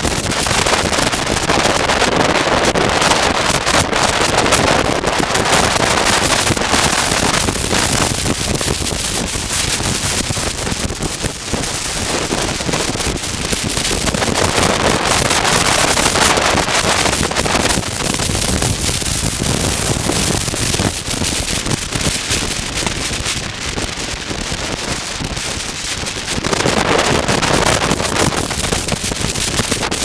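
Wind rushing over a helmet-mounted camera microphone on a motorcycle at road speed, with the bike's engine underneath. It rises and falls in strength, easing through the second half and swelling again near the end.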